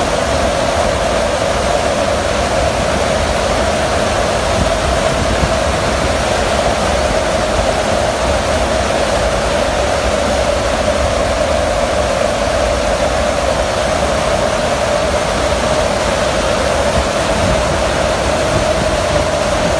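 Loud, steady rush of wind and engine noise inside the hold of a transport aircraft flying with its rear cargo ramp open, with a steady drone under the rush.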